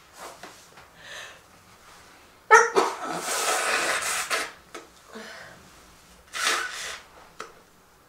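A woman sneezes, sudden and loud about two and a half seconds in, followed by about two seconds of breathy nasal noise into a tissue held over her nose. Softer breaths and sniffles come before it, and a second shorter loud sound follows near the end.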